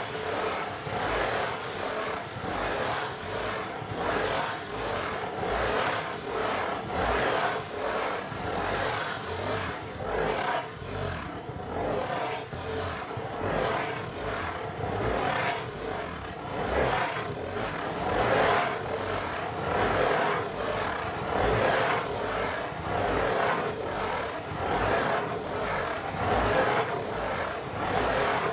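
Fingernails scratching in circles on the lid of a corrugated cardboard pizza box: a continuous rhythmic scratching that swells and fades with each circling stroke, well over one stroke a second.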